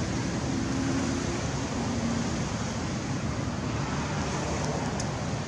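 Steady low rushing background noise with no distinct event.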